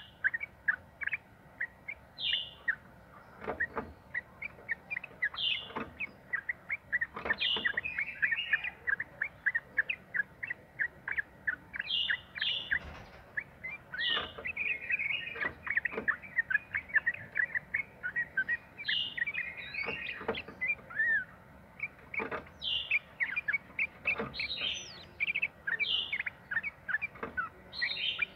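Yellow-vented bulbul (trucukan) singing in a long, near-continuous run of rapid short chirps, with higher clear notes breaking in every couple of seconds.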